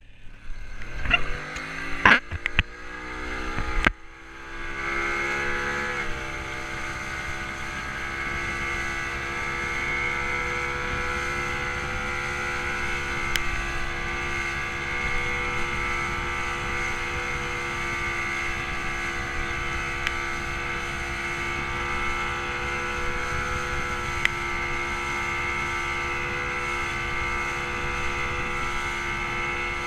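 Yamaha 50 hp outboard motor on an inflatable boat rising in pitch as the throttle opens over the first few seconds, with a few loud knocks, then running steadily at speed over the rush of water and wind.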